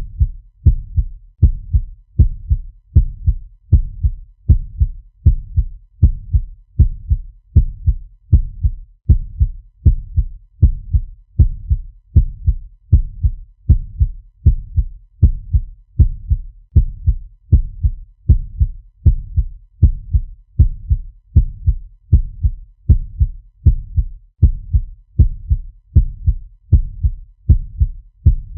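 Heartbeat sound effect: a fast, steady pulse of low thumps repeating evenly with no change in tempo.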